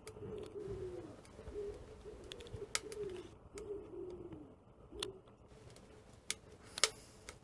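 A pigeon cooing, a run of soft, low, falling coos for the first five seconds or so, with a few sharp clicks scattered through, the loudest a little before the end.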